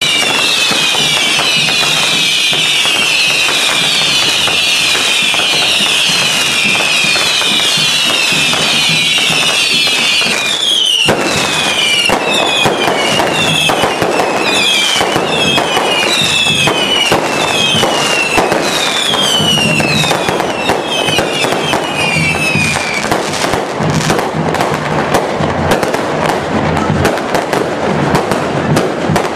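Fireworks display: a dense barrage of whistling fireworks, many shrill whistles each falling in pitch, over continuous crackling and bangs. About ten seconds in the whistles thin out to separate ones, and they stop a little past twenty seconds, leaving the crackling and bangs.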